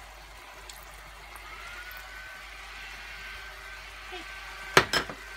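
Tomato sauce simmering in a frying pan with a steady hiss as mentsuyu is poured into it. Two sharp knocks come close together near the end.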